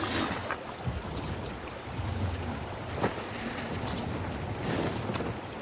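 Film sound effects of a dragon: low rumbles that come and go, like heavy breaths, with creaks, scrapes and rustles of scales and hide as a rider clambers onto its back, and one sharp scrape or click about three seconds in.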